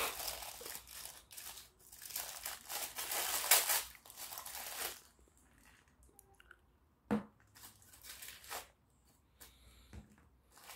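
Thin plastic wrap crinkling and tearing as it is peeled off a Play-Doh tub, for about five seconds. Then a few light knocks as plastic tubs are set down and stacked.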